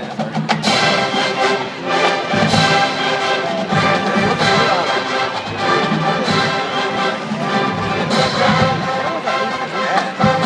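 Marching band playing brass chords over drum hits.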